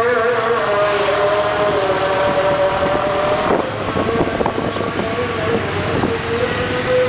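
Motorbike engine running at riding speed: a steady humming tone that drops a little in pitch about halfway through, over rough, gusty road and wind noise on the microphone.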